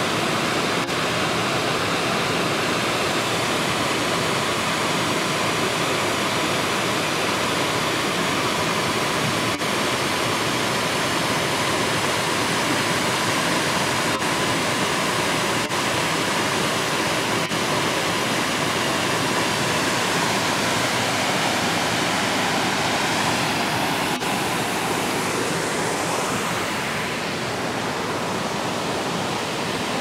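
Brownstone Falls, a tall waterfall dropping into a rocky gorge, rushing steadily. The roar eases slightly near the end.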